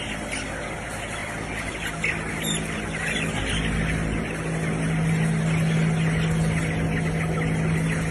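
A large flock of broiler chickens calling all at once, a dense chatter of clucks and cheeps, over the steady hum of the shed's ventilation fans, which grows louder about three seconds in.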